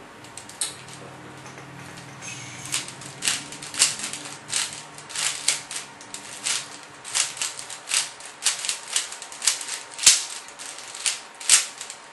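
Rubik's cube being scrambled by hand: its plastic layers turned with quick, uneven clacks, about two a second, beginning about two seconds in.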